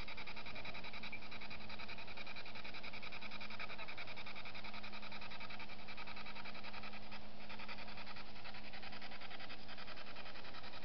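Steady night chorus of insects, a dense, rapid trilling that does not let up.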